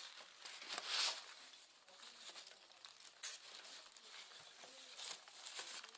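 Packing material rustling and crinkling in irregular bursts, with a few sharper crackles, as a shipping box full of packing peanuts is dug through and the item inside is pulled out and unwrapped.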